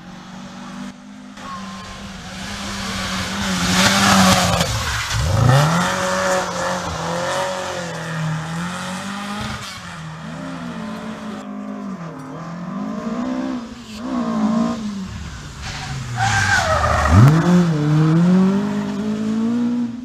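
Ford Escort rally cars at full stage speed, the engine note revving up and dropping through braking and gear changes. The loudest passes come about 4 seconds in and again about 17 seconds in.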